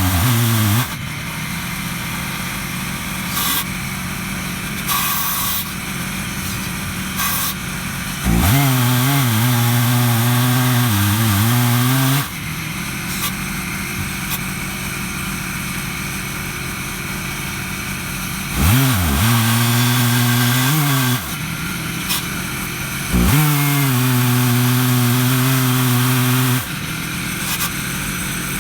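Stihl MS 880 two-stroke chainsaw with a 36-inch bar and ripping chain, running in an Alaskan mill and cutting through a black walnut log. Its engine note rises louder and clearer in several stretches, dipping and recovering in pitch under load, and drops back to a rougher, quieter cutting noise between them.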